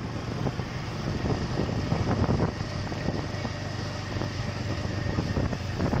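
Motorcycle engines running as traffic passes on the road, with wind buffeting the microphone.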